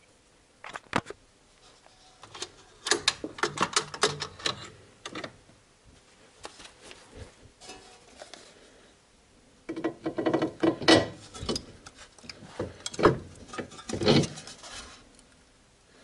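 Metal clinking and knocking of car suspension parts and hand tools being handled while fitting a front hub and ball joint: a couple of sharp knocks about a second in, then two spells of rapid clatter, from about two and a half seconds in and again from about ten seconds in.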